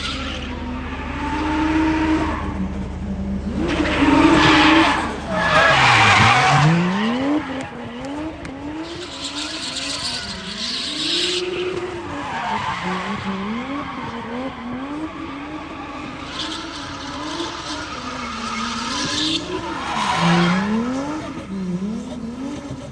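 A drift car's engine revving up and down again and again through a slide, with its tyres squealing in several long bursts, loudest about five seconds in and again near the end.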